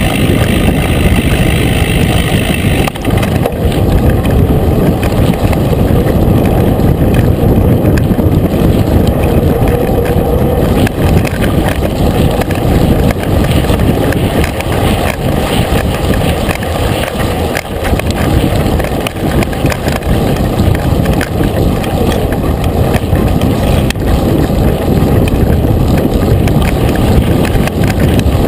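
Mountain bike riding a dry dirt trail, heard from a handlebar-mounted camera: a loud, steady rumble of wind on the microphone and tyres rolling over dirt, with frequent small knocks and rattles from bumps.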